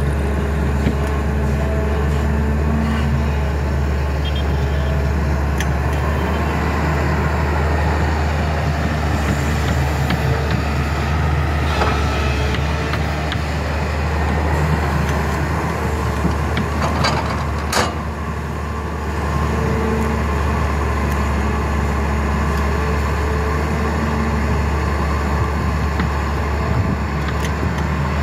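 SANY SY210C-9 crawler excavator's diesel engine running steadily under working load while it digs, swings and lifts sand, with a low, even drone. A few sharp knocks come about two-thirds of the way through.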